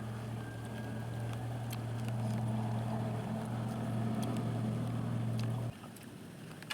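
A steady low motor hum that cuts off suddenly near the end, with a few faint clicks.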